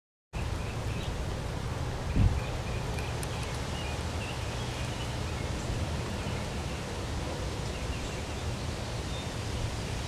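Outdoor background noise: a steady low rumble with one thump about two seconds in, and faint, short high-pitched chirps now and then.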